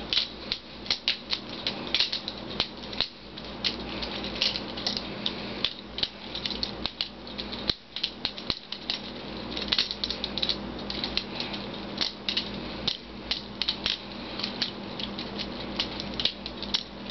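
Spyderco Smallfly balisong trainer being flipped: rapid, irregular clicks and clacks as the G10 handles swing around and knock shut.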